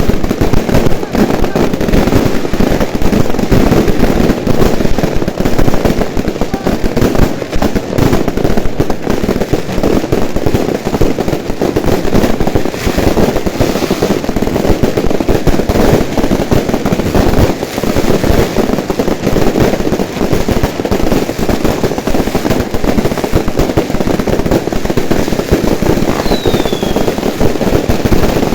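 New Year's fireworks display going off in a dense, continuous barrage of bangs and crackles, with a short falling whistle near the end.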